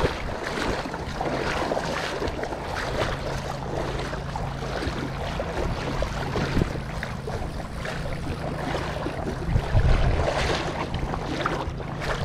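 Shallow creek water rushing and rippling close to the microphone, with wind buffeting it.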